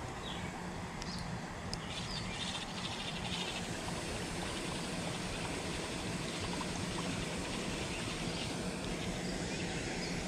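Steady outdoor background noise with a low hum, and a few short, high chirps from a small bird in the first three seconds and again near the end.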